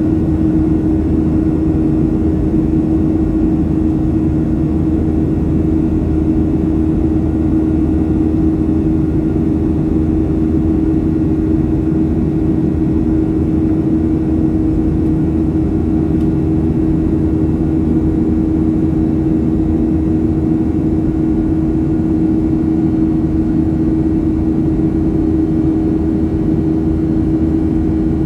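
Steady in-flight drone inside a passenger airplane's cabin: engine and airflow rush with a constant hum over it.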